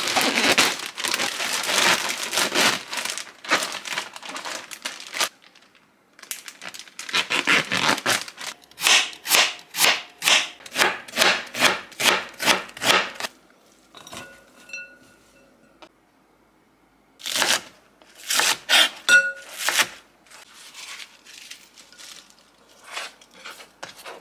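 A plastic zipper bag crinkling as napa cabbage is pushed into it. After about six seconds, a kitchen knife cutting Korean radish into matchsticks on a wooden cutting board, about two cuts a second, followed by a few scattered knocks and cuts.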